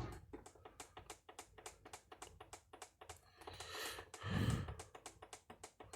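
A rapid, fairly even run of sharp clicks, about five a second, with a whoosh that swells into a low thump about four seconds in.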